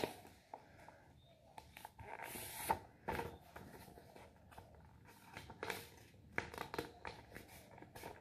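A sheet of paper being folded and handled: faint, irregular crinkling and rustling with a few sharper crackles, busiest about two to three seconds in.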